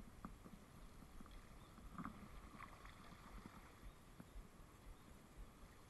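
Near silence: faint flow of a small stream, with a few light ticks and splashes, the clearest about two seconds in.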